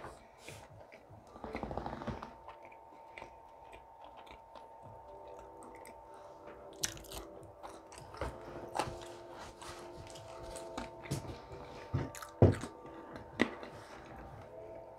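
A person eating close to the microphone: chewing with irregular sharp clicks and crackles of biting, the loudest about three quarters of the way through.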